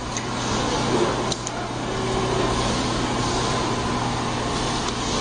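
Steady hum and drone of factory machinery, with a low hum under a faint steady whine, and one brief click about a second and a half in.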